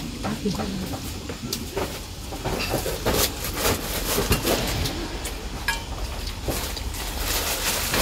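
Metal spoons clinking and scraping against stainless steel bowls and plates at a meal: a scatter of light clinks, a few of them ringing briefly.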